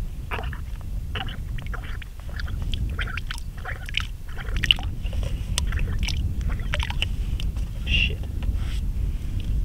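Wind rumbling steadily on the microphone, with irregular short clicks and rustles over it throughout.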